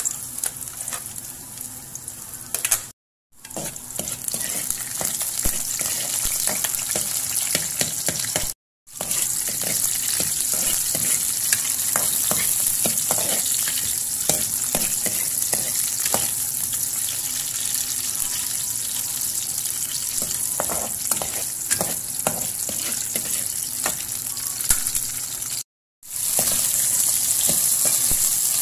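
Diced ginger, then onions and chopped potatoes, sizzling in hot oil in a metal pan, with a utensil stirring and clicking against the pan. The sizzle drops out briefly three times.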